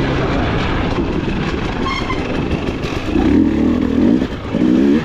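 Off-road dirt bike engine running hard, its revs climbing about three seconds in and again near the end, over a steady rushing noise.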